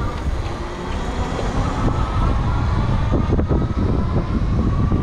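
Wind rushing over the camera microphone and tyre rumble from a Super73 RX electric bike riding along a street, growing louder over the first two seconds as it picks up speed, with a faint steady whine above the rumble.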